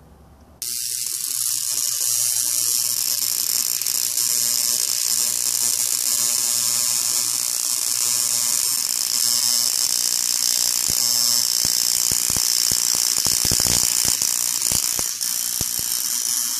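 High-voltage discharge from homemade salt-water bottle capacitors being charged: a loud, steady hiss and buzz of corona and arcing that switches on abruptly about half a second in and cuts off at the end, with a low hum beneath and a run of sharp crackling sparks near the end.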